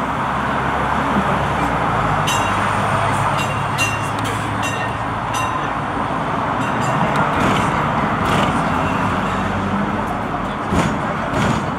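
Hong Kong double-decker electric tram running along its rails, heard from the upper deck: a steady running noise with a low motor hum that shifts in pitch. A quick series of short, high-pitched ticks comes about two to five seconds in.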